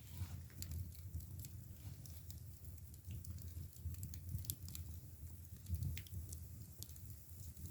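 Split bamboo firewood burning in a traditional Korean agungi firebox: irregular sharp crackles and pops over a low, steady rumble.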